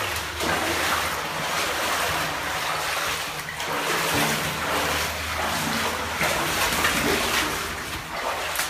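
Rushing, rustling noise from the phone's microphone being handled and rubbed as it is carried, swelling and easing irregularly.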